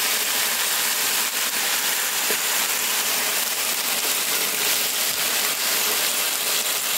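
Deboned marinated chicken sizzling as it fries in a hot pan: a steady hiss with scattered small pops.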